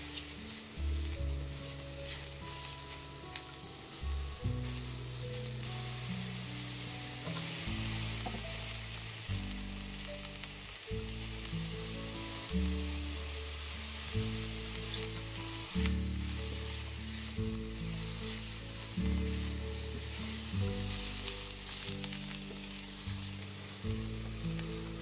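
Maitake mushrooms and Japanese mustard spinach sizzling in oil in a frying pan as they are stir-fried with a spatula, with background music of low, steady notes playing along.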